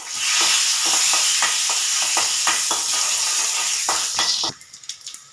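Chopped onions and dried red chillies sizzling loudly in hot oil in a small kadai as a tempering for sambar, stirred with a spoon that clicks against the pan. The sizzling stops suddenly about four and a half seconds in.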